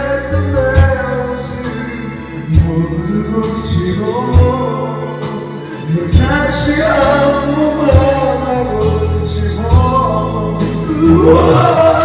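A Korean song sung over a karaoke backing track, with a drum hit and bass note about every two seconds under the wavering vocal melody.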